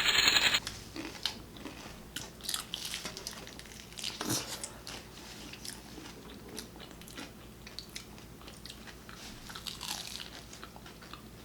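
A person biting and chewing sopes: crunching and smacking mouth sounds, opening with a loud burst of noise and then scattered smaller clicks and crunches.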